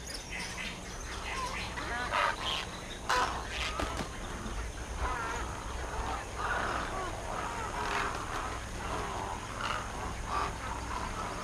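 Wild animals calling: many short, bird-like calls overlapping, over a low steady hum.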